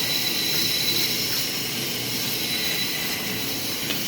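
Power grinder held against carbon-steel bar stock, cleaning it to bare metal for forge welding. The abrasive makes a steady, harsh hiss as it cuts the steel.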